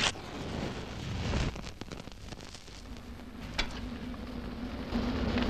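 Steam locomotive hissing steam, with a sharp clank at the start and another about three and a half seconds in; a low steady hum joins about three seconds in.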